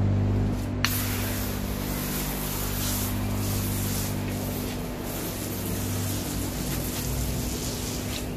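Gloria FM10 hand-pump pressure foam sprayer spraying snow foam onto a car: a click as the valve opens about a second in, then a steady hiss. A steady low hum runs underneath.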